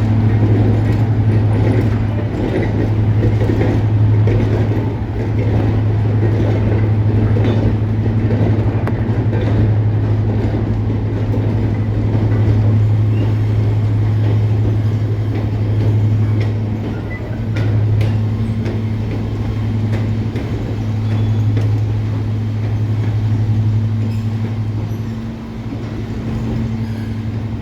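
Class 55 Deltic diesel locomotive 55019, its two Napier Deltic two-stroke engines running with a steady, loud low drone that swells and fades a little, dipping briefly near the end.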